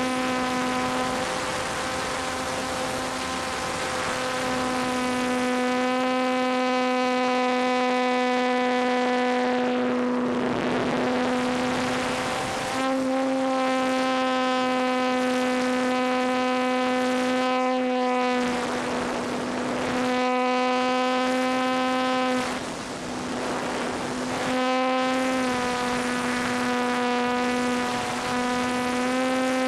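Electric motor and propeller of a ParkZone T-28 Trojan RC plane, heard from a camera on board: a steady high whine under power. A few times the whine weakens briefly and a rush of air noise swells.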